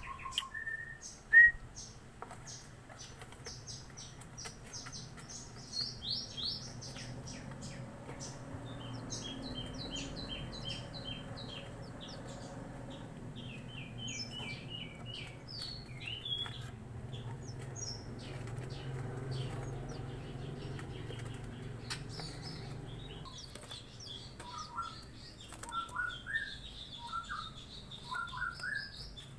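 Young Javan bush larks chirping in many quick, short, high notes, with soft clicks and wing flutters among them; lower, rising chirps join in the last few seconds.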